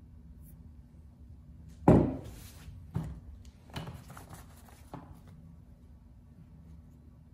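Woody fig cuttings knocked and shuffled on a newspaper-covered bench: one loud thunk about two seconds in with paper rustling after it, then three lighter knocks over a steady low hum.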